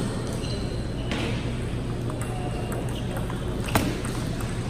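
Table tennis rally: light ticks of the celluloid ball on the table and rackets, then one sharp crack of a racket stroke near the end, over a steady low hum.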